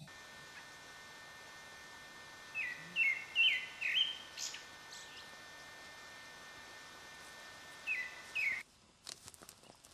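A bird calling in short, sharp chirps that drop in pitch, four in quick succession about three seconds in and two more later, over a steady background hiss. The hiss cuts off about a second before the end, giving way to a few sharp clicks.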